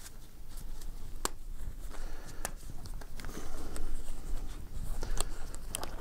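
Disposable gloves being pulled onto the hands: rubbery rustling and stretching, with several sharp snaps, the loudest about a second in.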